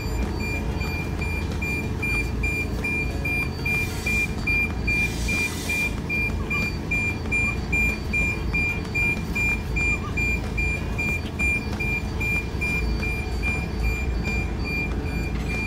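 Mercedes-Benz container tractor-trailer reversing: its reversing alarm beeps steadily, about three high beeps a second, over the low running of the diesel engine. A brief hiss comes about four seconds in.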